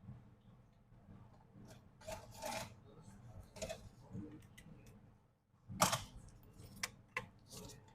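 Small hand tools and phone parts being handled on a work surface: a series of short rubbing and scraping strokes with a few sharp clicks, the loudest scrape about six seconds in.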